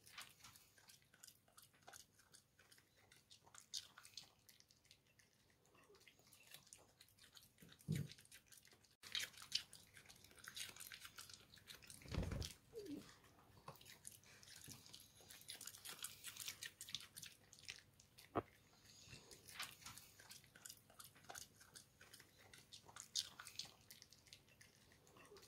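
Maltese dog chewing fresh cilantro stems, a faint, irregular run of small crunches and clicks, with two louder low thumps about eight and twelve seconds in.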